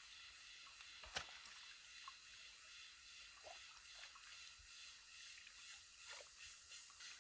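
Faint squishing and sloshing of hands working in a shallow, muddy stream, moving stones, with small splashes and drips, and one sharp knock about a second in. A steady high hiss runs underneath.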